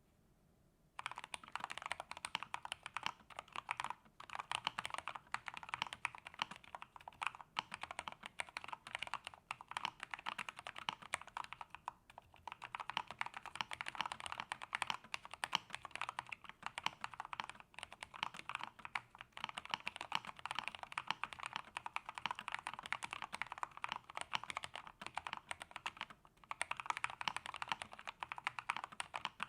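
Fast, continuous typing on an Epomaker GK87S tenkeyless mechanical keyboard with lubed Gateron Milky Yellow linear switches, a steel plate and a foam-dampened, tape-modded case. The keystrokes start about a second in, with a few brief pauses.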